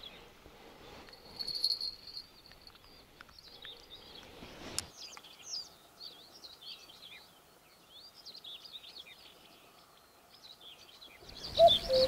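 Small songbirds chirping and trilling in short, varied high phrases. Near the end, a common cuckoo gives one falling two-note 'cu-ckoo' call.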